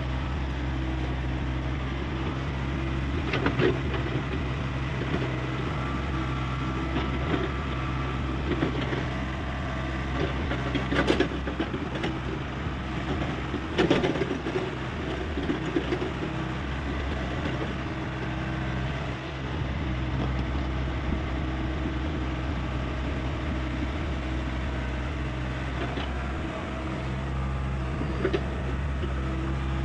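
Hyundai 85A excavator's diesel engine running steadily, with a few short knocks scattered through.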